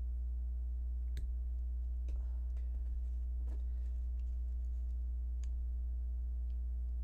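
A few faint, light clicks of small 3D-printed plastic armature pieces being handled and slid onto wire, over a steady low electrical hum.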